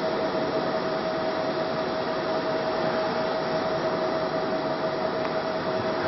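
Steady fan noise: an even hiss with a constant whine held at one pitch, unchanging throughout.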